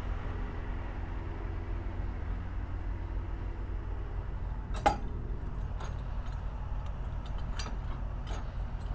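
Sharp metal clicks and clinks over a steady low rumble: one loud click about five seconds in, then several lighter ones over the next few seconds.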